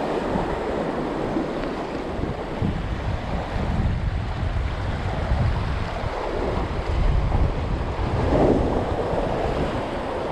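Ocean surf washing over shoreline rocks, swelling and easing, with wind buffeting the microphone.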